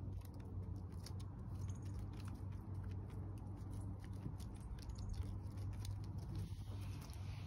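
Light ticks and scratches of a gray squirrel's claws on a wooden deck and rubber doormat as it comes up and takes a piece of bread from a hand, over a steady low hum.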